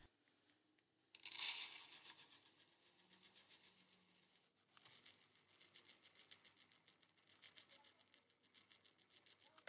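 Caustic soda granules poured from a bottle into a plastic cup, a faint rattling trickle of many small grains hitting the cup. It starts about a second in and stops briefly around the middle. After that it comes in short shakes as the weight is brought up toward 50 grams.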